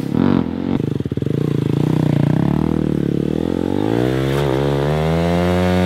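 KTM Duke stunt motorcycle's engine revving as the bike accelerates in a wheelie, its pitch climbing steadily for several seconds, dipping briefly near the end, then holding high.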